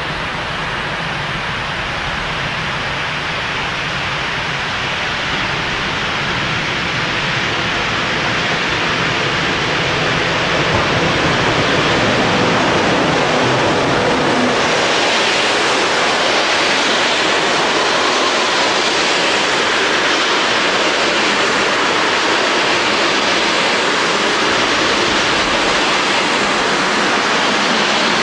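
Locomotive-hauled passenger train running past at speed behind an electric locomotive: a steady rushing roar of wheels on rail. It grows louder and more hissing as the locomotive and coaches come close, then holds while the coaches stream by.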